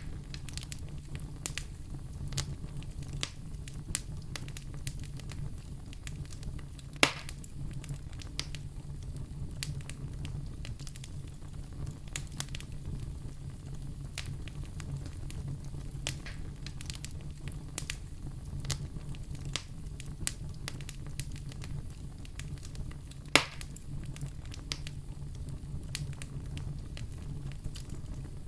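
Wood fire crackling in a fireplace: many small snaps and ticks over a low steady rumble, with two louder pops, one about seven seconds in and another near the end.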